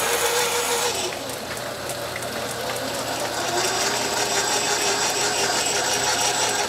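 Belt-driven automatic watch-screw machine running through its cycle: a steady clatter of cams, pawls and gears with many fine ticks, over a steady tone.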